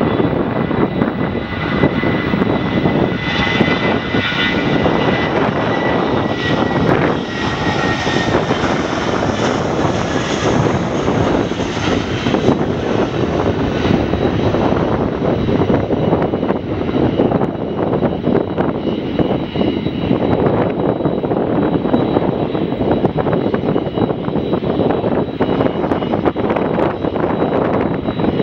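Jet airliner engines running loud and steady, a continuous rush of noise with a thin high whine over it.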